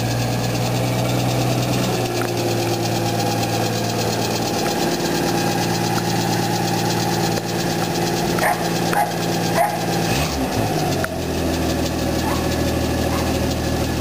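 1946 Studebaker M5 pickup's flathead six-cylinder engine running steadily at low speed, its tone shifting about two seconds in and again around ten seconds in. A dog barks three times about nine seconds in.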